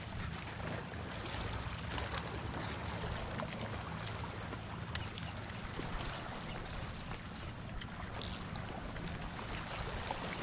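An insect chirring in a high, fast-pulsing trill that comes in about two and a half seconds in and keeps on, over a low steady background noise.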